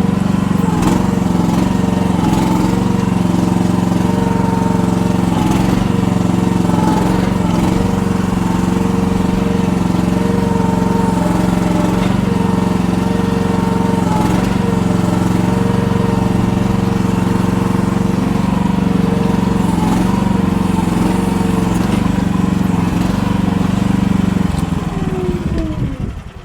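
Mini excavator's engine running steadily under load as the machine climbs a muddy bank, then winding down and stopping near the end.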